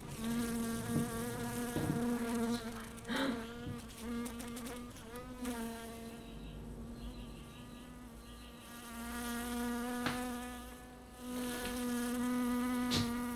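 A giant fly buzzing in flight: a steady, buzzing hum that wavers a little in pitch as it moves about. A few sharp knocks come from a plastic flyswatter swung at it.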